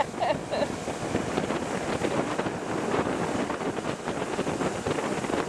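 Steady rush of wind buffeting the microphone aboard a motorboat running across open water, engine and water noise blended into one even roar.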